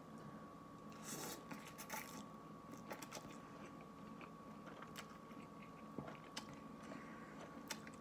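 Quiet slurping and chewing of instant noodles eaten with chopsticks, with soft slurps about a second in and again near two seconds, and a few small sharp clicks.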